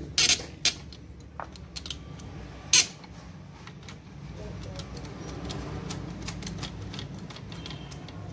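Hand tools and metal engine parts knocking and clicking during engine assembly: a few sharp knocks, the loudest near three seconds in, then a run of lighter clicks over a steady low hum.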